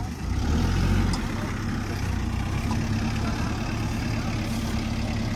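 A vehicle engine running steadily, louder for about the first second.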